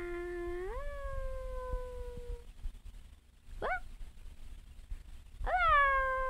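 Baby cooing, three separate vocal sounds: a long held coo that rises in pitch about a second in and then fades, a short rising squeak midway, and a louder coo near the end that jumps up and is held.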